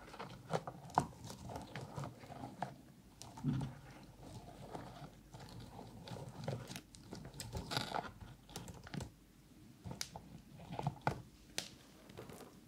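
Fingers digging and stirring through a plastic box packed with cotton swabs right at a binaural dummy-head microphone: a dense, irregular crackle of clicking swab sticks and rustling cotton tips, in louder flurries now and then.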